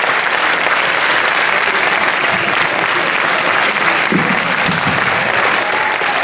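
A large theatre audience applauding steadily, with a voice briefly rising above the clapping about four seconds in.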